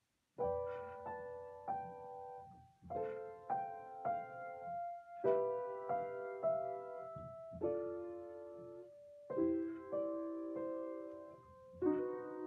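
Solo piano playing slow, sustained chords, starting about half a second in.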